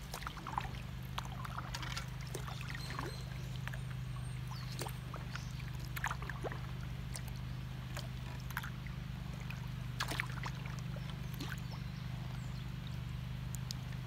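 Kayak paddling: irregular splashes, drips and trickles of water as the paddle blades dip in and lift out, over a steady low rumble.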